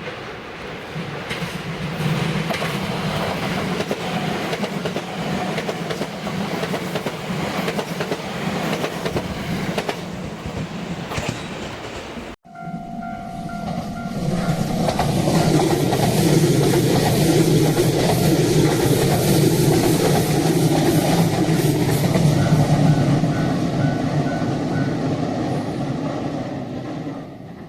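JR West 227 series electric train running past on the grade, its wheels and motors making a steady rumble with rail clatter. After a sudden cut, a second, louder pass follows, with a pulsing tone ringing just after the cut and again near the end of the pass: a level-crossing warning bell.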